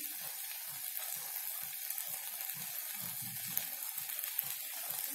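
Onion-tomato masala frying in oil in a steel kadai, a steady sizzle.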